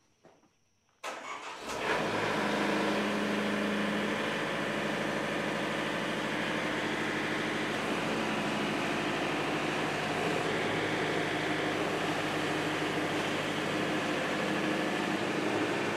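Wood-Mizer LT70 sawmill's engine starting about a second in, catching quickly and then running steadily as the mill is warmed up.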